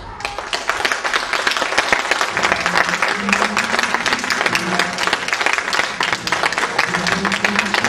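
Audience applauding: dense clapping that breaks out suddenly and keeps up steadily.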